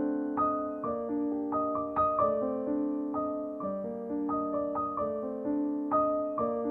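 Soft piano background music, gently arpeggiated notes ringing and fading, several a second.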